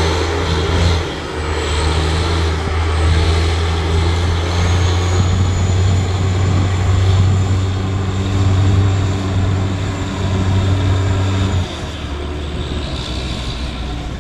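NICOLAS Tractomas heavy-haul tractor's 1,000 hp diesel engine running steadily as it drives with a trailer in tow, a loud low drone. The sound drops off sharply about twelve seconds in.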